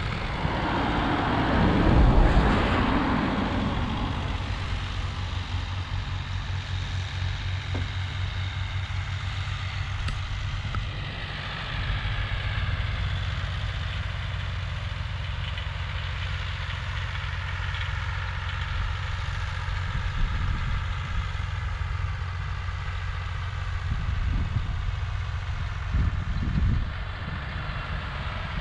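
A motor vehicle engine idling steadily with a low rumble. A vehicle passes along the road in the first few seconds, rising to a rush and fading away.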